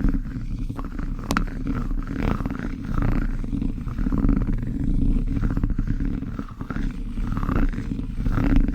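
Close-miked plastic spoon ASMR sounds: an irregular stream of soft clicks and smacks over a steady low rumble, with one sharper click about a second in.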